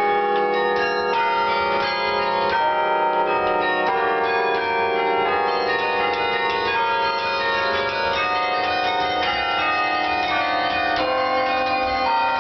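Carillon being played from its baton keyboard: a tune of many bronze bells struck one after another, each note ringing on and overlapping the next.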